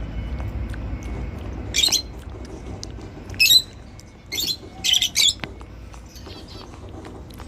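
Indian ringneck parrot with a cashew nut treat, making about five short, sharp, high-pitched sounds in quick succession through the middle, over a low steady background rumble.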